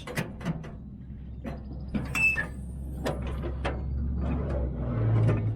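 Metal tool cart drawers and lock being tried: a series of clicks, knocks and rattles, with a brief squeak about two seconds in. A low steady rumble underneath grows louder toward the end.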